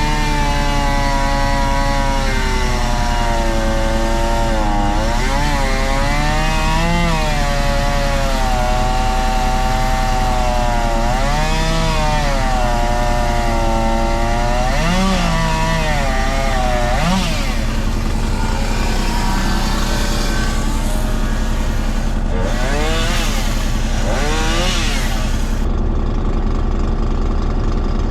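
Chainsaw running while felling and cutting pine, its pitch rising and falling again and again as it works; near the end it settles into a duller, steadier run.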